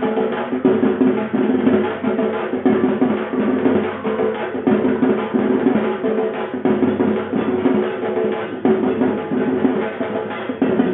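Music led by fast, continuous drumming with pitched instruments underneath.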